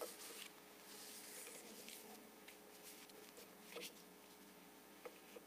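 Near silence: room tone with a faint steady hum and a few faint clicks and rustles.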